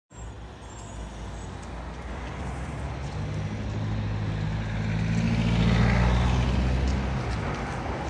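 A motor vehicle driving past on a city street, its low engine hum growing louder to a peak about six seconds in and then fading away, over steady traffic noise.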